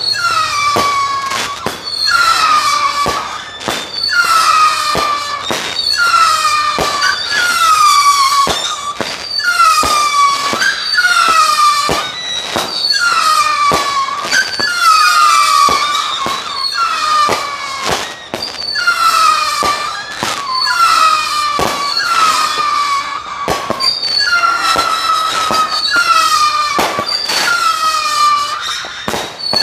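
Zombie Brand Banshee multi-shot firework cake firing about one shot a second. Each shot goes off with a sharp pop followed by a shrill whistle that falls a little in pitch, and the whistles often overlap.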